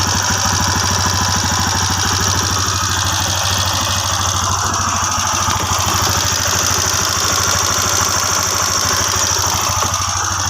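TVS Apache RTR single-cylinder four-stroke engine idling steadily with a loud, fast, even rattle of ticks from the top end. The rattle comes from very loose rocker arms with too much valve clearance.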